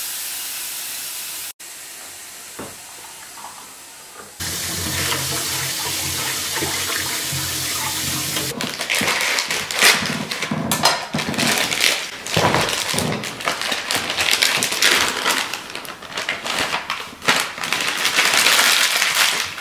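A coffee machine hissing, cut off after about a second and a half. A steady rushing sound with a low hum runs from about four to eight and a half seconds in. From there on comes irregular crackling and rustling as a plastic biscuit packet is slit open with a knife and torn apart.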